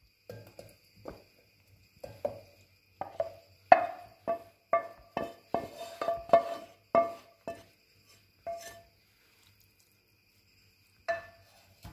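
A wooden spoon knocking against a frying pan and an enamel bowl as cooked noodles are scraped out of the pan. There is a quick, uneven run of about twenty sharp knocks, each ringing briefly, then a pause and one last knock near the end.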